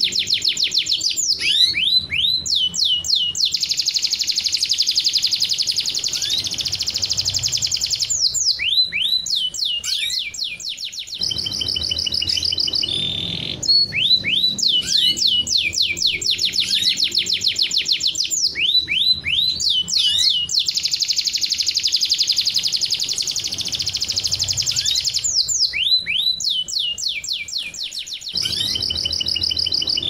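Domestic canary song in breeding form: long, very fast rolling trills broken by runs of rising and falling whistled notes, the kind of song played to get canaries ready to pair and mate. The same passage repeats about every twelve seconds.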